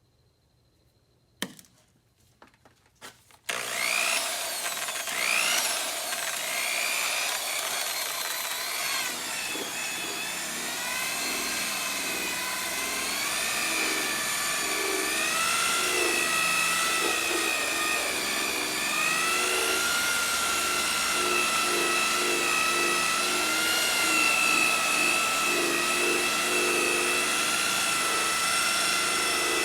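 An electric buffer starts up after a click and some handling knocks, its whine rising at first and then running steadily, the pitch wavering as the buffing pad works against a plastic headlight lens.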